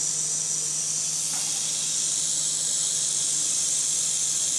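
Prairie rattlesnake rattling its tail: a steady, high-pitched buzz, the snake's defensive warning.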